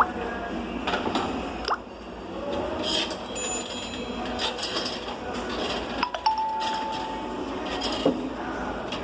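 Xiaomi Redmi 9A ringtone playing: sparse chiming, tinkling sounds and sharp clicks over a steady hiss, with one held tone lasting about a second starting roughly six seconds in.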